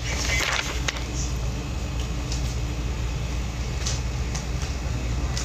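A steady low rumble, with a brief bit of voice in the first second and a few faint clicks.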